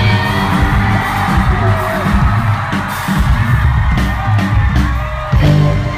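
A rock band playing live and loud: drums, bass, guitar and keyboard under a male lead vocal.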